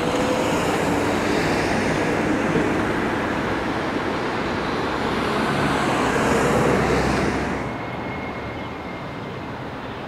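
Street traffic: a steady roar of passing vehicles that eases off fairly quickly about three-quarters of the way through, leaving a quieter background hum.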